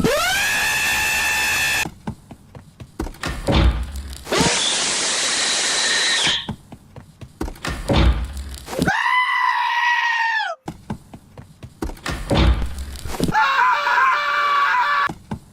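A looped cartoon clip with four different dubbed sound effects, each about two seconds long, standing in for a character's scream; the first glides up in pitch and the last warbles. A dull thud and brief clatter come between them.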